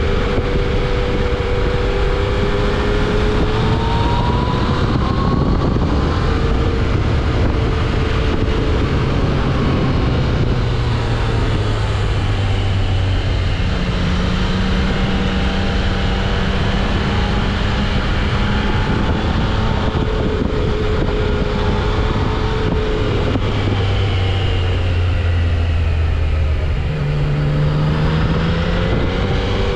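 Yamaha XSR900's inline three-cylinder engine running through its stock exhaust, with a mild 'sewing machine' sound. Its pitch rises and falls again and again as the throttle opens and closes, under a constant rush of riding wind on the microphone.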